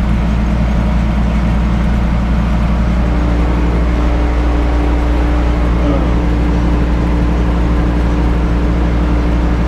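An engine running steadily at low speed with a fast, even throb, joined about three seconds in by a steady higher hum.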